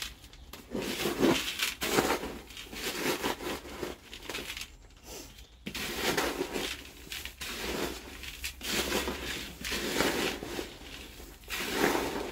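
Hands stirring a gritty bonsai soil mix in a plastic bucket: the granules rustle and crunch on and off, with a short pause about five seconds in.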